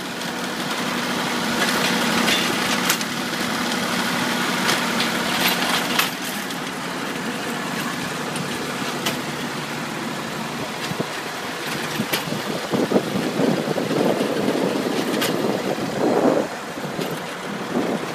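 Ford 3910 tractor's diesel engine running steadily under load while the Brouwer A3a sod harvester's cutter and conveyor clatter and knock. The clatter grows rougher and louder in the last third.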